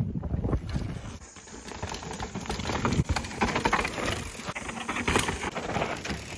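Mountain bike rolling over rough trail: an irregular clatter of tyres crunching over dirt and stones and the bike rattling.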